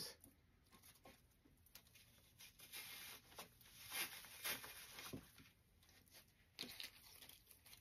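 Faint rustling and scratching of artificial flower stems being pushed into a dry grapevine wreath, with a few soft crackles about three to five seconds in.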